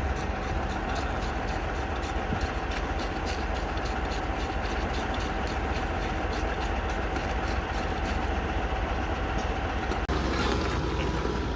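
A heavy engine running steadily with a low rumble and a thin steady whine; the whine stops about ten seconds in and the sound shifts.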